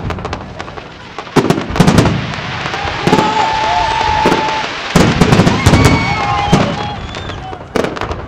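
Aerial fireworks display: shells bursting in a quick, uneven string of sharp bangs after a quieter first second, with crackling between them.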